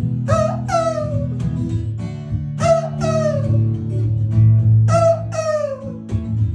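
Acoustic guitar strummed, with pairs of short falling wails laid over the chords three times, about two and a half seconds apart.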